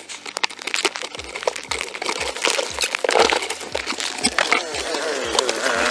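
Crackling, crinkling handling noise with many small clicks as a string tie is pulled off a printer, with soft low knocks about twice a second.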